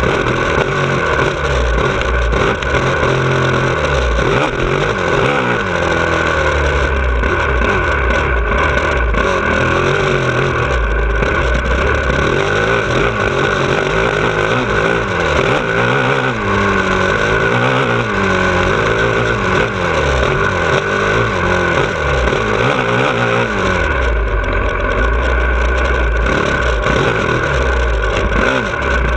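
2017 Honda CRF450R's single-cylinder four-stroke engine under load on a motocross track, its revs rising and falling again and again as the rider accelerates, shifts and backs off for the corners.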